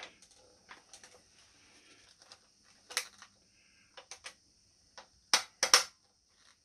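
Scattered clicks and light knocks from handling a Cyma CM.028 AK-47 airsoft rifle as a removed part is worked back on, with the sharpest few clicks about five and a half seconds in.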